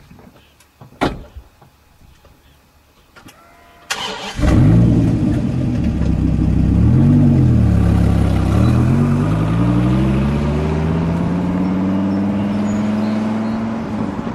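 A few faint clicks and a knock, then about four seconds in a Dodge Viper's V10 engine fires up suddenly and loudly. It blips its revs once and pulls away, the engine note climbing steadily as the car accelerates.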